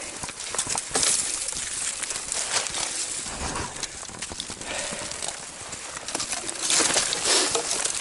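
Footsteps of someone climbing a steep trail on foot, irregular crunching and scuffing on the ground.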